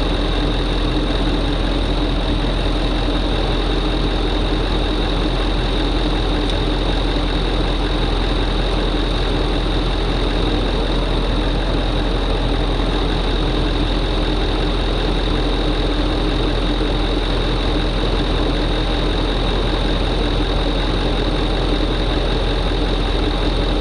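LML Duramax 6.6-litre V8 turbodiesel idling steadily.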